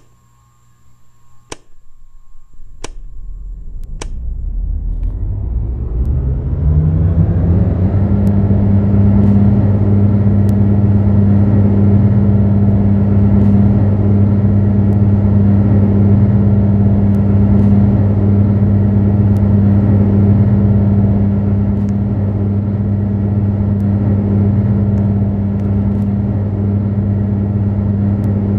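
Electric fan switched on after a few clicks, its motor hum rising in pitch as it spins up over the first several seconds, then running steadily with a low hum and a rush of air.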